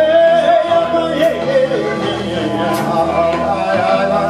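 Live rock band playing: electric guitar and drum kit, with cymbal hits and a long held note with vibrato over the first second and a half.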